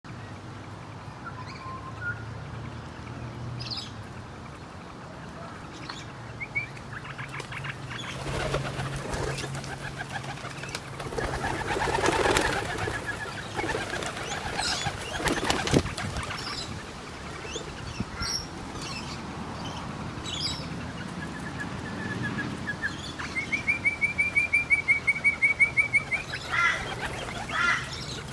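Feral rock pigeons flapping in to land and pecking at a pile of mixed seed on bare ground, with wingbeats and beak clicks. Small birds chirp in the background, and near the end a fast run of high repeated chirps lasts a couple of seconds.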